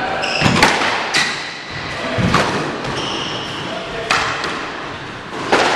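Squash rally: sharp cracks of racquet striking ball and ball hitting the walls, about five over the stretch, with short high squeaks of court shoes on the hardwood floor in between.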